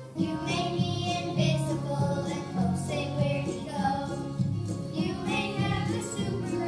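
Children singing a song over an instrumental backing track played through a stage speaker.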